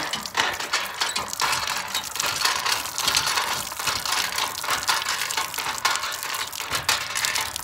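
Hand pump being worked, its metal handle and rod clanking and clicking while water gushes from the spout and splashes onto the concrete.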